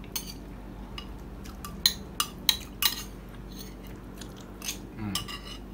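A metal spoon clinking and scraping against a bowl as food is scooped up, with a quick run of four sharp clinks in the middle.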